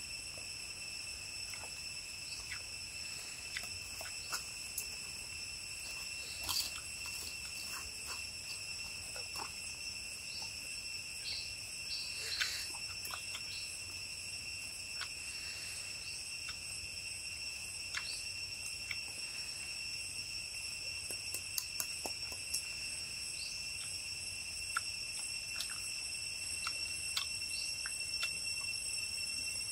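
Insects shrilling steadily at one high held pitch, with scattered small clicks and smacks of chewing.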